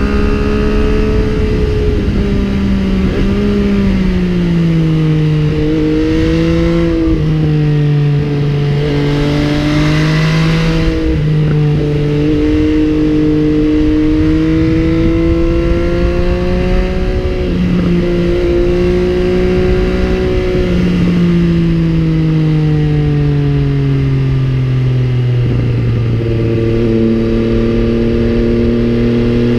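MV Agusta Brutale 800's inline three-cylinder engine running under way, its note rising and falling gently with the throttle and sinking lower near the end. A low wind rumble sits underneath.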